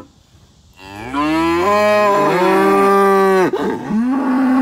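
Cattle mooing: two long calls. The first starts low and rises in pitch about a second in, then holds steady; the second, higher and steady, begins near the end.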